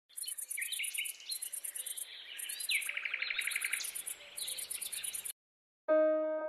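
Birds chirping and singing, with a trill about three seconds in, over a high, fast-pulsed chirring that repeats in short bursts; it all cuts off about five seconds in. Electric piano music begins near the end.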